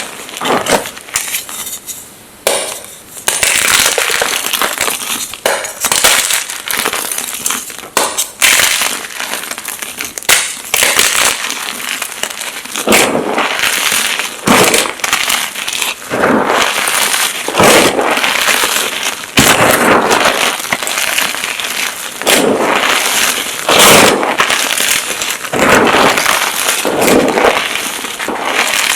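Blocks of magnesium gym chalk being crushed and crumbled, a dense run of dry crunching and crackling with louder crunches every second or two.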